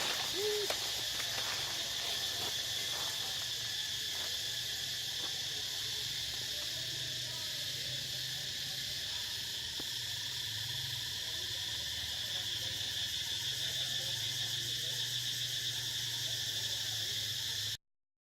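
Steady, high-pitched drone of insects in the forest, with a brief short call about half a second in; the sound cuts off abruptly near the end.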